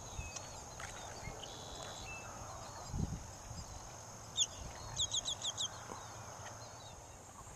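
Birds calling over a faint steady outdoor background with a thin high-pitched hum: scattered small chirps, a single sharp call about four seconds in, then a quick run of five repeated notes. A soft low thump comes about three seconds in.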